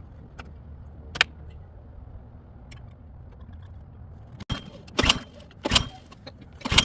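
Several sharp clacks and knocks of hard objects being handled: a single click a little over a second in, then four louder clacks in the last two and a half seconds, some with a brief metallic ring, over a low steady hum.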